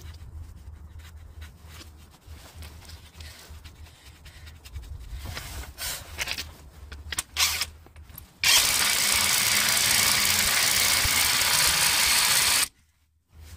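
Impact wrench running the spindle nut onto the new front drive shaft at the wheel hub: one loud, steady run of about four seconds, starting about eight seconds in and stopping abruptly. Before it come a few faint knocks.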